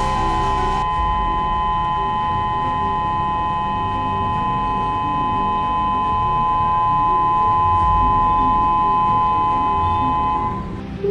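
Tsunami early-warning siren sounded as a test, holding a steady, unwavering chord of several tones that cuts off shortly before the end.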